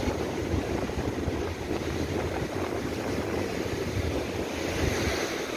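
Strong wind buffeting the microphone over lake waves breaking and washing on the shore, with one wash swelling louder near the end.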